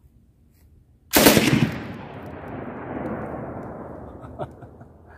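RPD belt-fed light machine gun with a shortened barrel firing one short burst about a second in, several rapid shots run together, followed by a long echo that fades over about three seconds.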